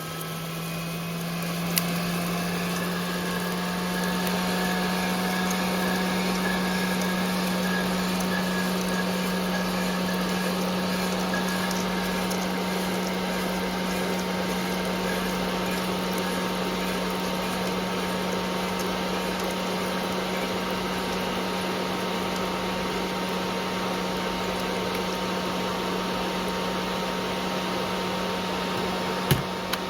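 Aillio Bullet R1 coffee roaster running its motors and fans just after the roast is dropped, at the start of cooling. It gives a steady hum with a rush of air. The hum rises a little at the start and then holds. A single click comes about two seconds in and another near the end.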